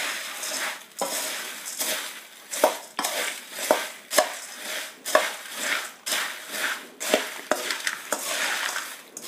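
Metal spoon stirring crisp roasted puffed-rice chivda in a stainless steel bowl: the dry puffed rice rustles and crunches, with repeated clinks and scrapes of the spoon against the bowl.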